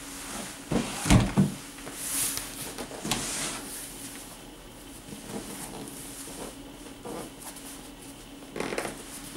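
Cardboard box being handled on a desk: a few knocks and a low thump about a second in, then light scraping and rustling of the cardboard, with more handling knocks near the end.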